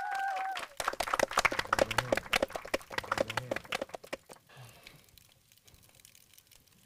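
A small audience clapping with sharp, uneven claps for about three seconds, dying away about four seconds in.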